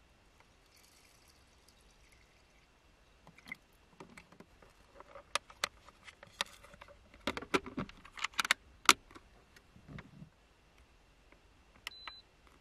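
A small Toffy microcomputer rice cooker being loaded and closed: scattered clicks and knocks of the inner pot and lid being handled, sharpest in the middle, then a short high beep near the end.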